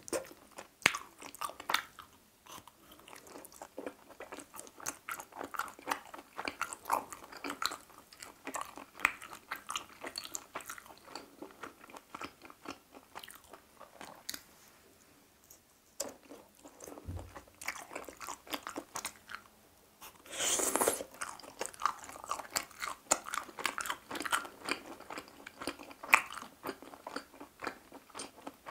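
Close-miked chewing of grilled chicken heart skewers in teriyaki sauce and mayonnaise: rapid wet mouth clicks and smacks, easing off for a couple of seconds past the middle, with a louder short burst of noise about twenty seconds in.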